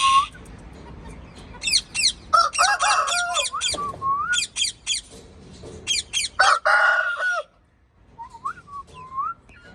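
Indian ringneck parakeet calling: groups of rapid, sharp chirps and a harsh squawk, mixed with softer whistled notes that slide up and down. It grows quieter near the end, leaving only a few short whistles.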